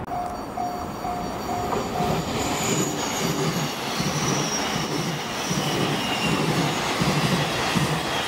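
Blue 883-series Sonic limited express electric train approaching and passing on a curve, its rumble building from about two seconds in, with high wheel squeal sliding down in pitch. An evenly pulsing warning tone beeps during the first two seconds.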